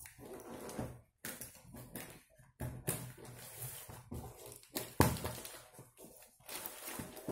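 Scissors cutting through a taped cardboard box: irregular crunching, scraping strokes of the blades through cardboard and packing tape, with a sharp loud snap about five seconds in.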